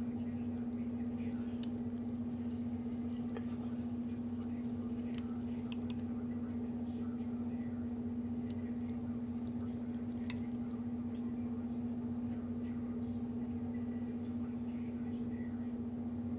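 Metal chopsticks stirring and lifting noodles in a ceramic bowl, giving a few sharp clicks against the bowl, over a steady low hum.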